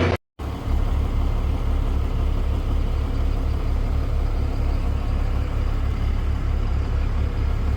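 Heavy machine's diesel engine running steadily, with an even low pulse. The sound drops out for a split second just after the start.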